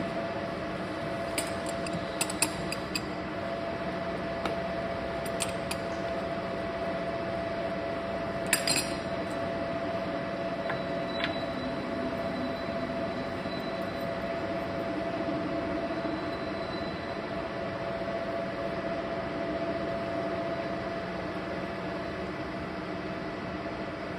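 Steady hum of a running lathe in a machine shop, with a handful of sharp metal clinks in the first nine seconds, the loudest about eight and a half seconds in, from tools and the steel workpiece being handled while the center point is set.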